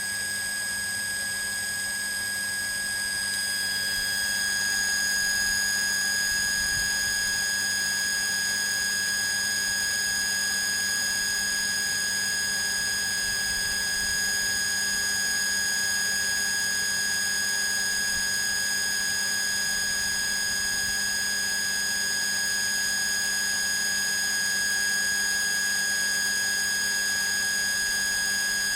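Electric water pump running steadily: a constant high whine over a low hum and hiss, swelling slightly about four seconds in.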